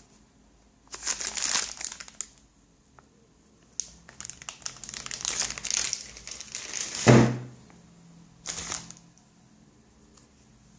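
Packaging crinkling and rustling in several bursts as it is handled, with one loud thump about seven seconds in, like something set down hard.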